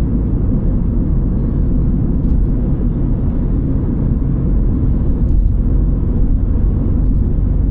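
Steady low rumble of a MINI John Cooper Works (F56) on the move: road and engine noise with no brake squeal standing out.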